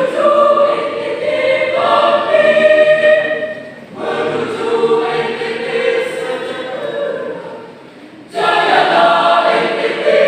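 Mixed four-part choir of soprano, alto, tenor and bass voices singing, in sung phrases with short breaths about four and eight seconds in.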